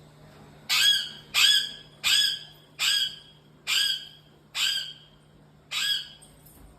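An animal calling seven times in a steady series, each call short, sharp and high-pitched, about one every 0.8 seconds, over a faint steady hum.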